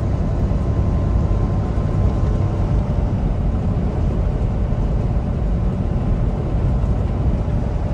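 Steady low rumble of a semi truck cruising at highway speed, heard inside the cab: engine and road noise with no sudden events.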